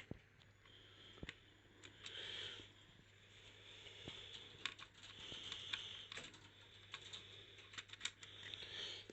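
Faint, scattered small clicks and short scrapes of screws being driven in by hand with a screwdriver while fixing a cooler radiator's mounting to a metal PC case.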